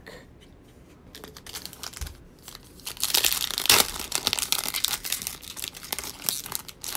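Foil wrapper of a 2020 Select Football trading-card pack crinkling and tearing as it is pulled open by hand. It starts with scattered crackles, and the crinkling is loudest about three to four seconds in.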